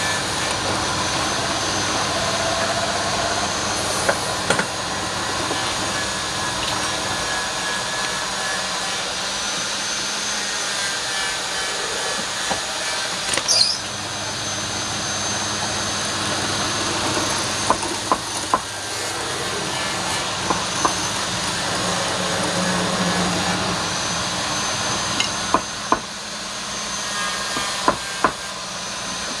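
Wood lathe running with a turning tool cutting the spinning wood, a steady noisy hiss, broken by a handful of sharp knocks.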